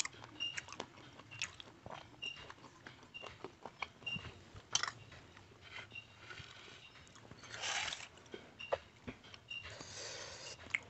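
Close-miked eating by hand: wet chewing and lip smacks on curry, meat and rice, in a run of small clicks, with two longer noisy stretches, one about eight seconds in and one near the end.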